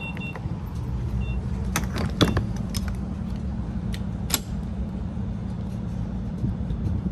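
Steady low rumble of a car heard from inside the cabin, with several sharp clicks and a few short high beeps.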